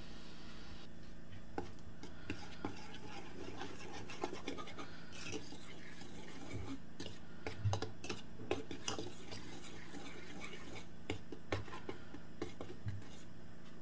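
A wire whisk stirring flour and spices in a ceramic bowl: soft, irregular scratchy brushing with light clinks of the wires against the bowl.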